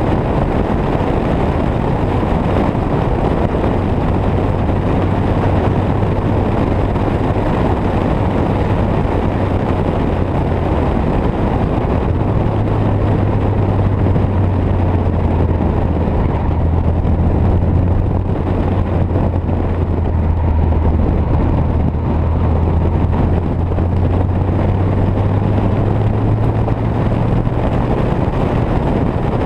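Classic Mini's 1380cc four-cylinder engine droning steadily at cruising speed, its note falling a little partway through and rising again near the end. Heavy wind and tyre noise on an outside-mounted camera.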